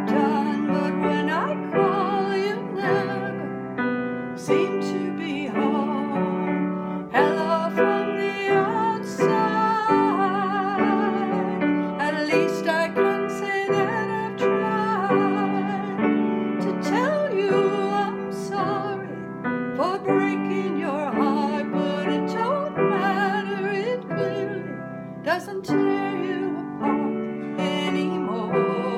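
A woman singing a slow ballad with strong vibrato, accompanying herself on piano with sustained chords.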